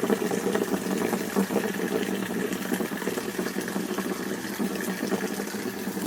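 Water pouring out in a steady stream, a continuous splashing rush.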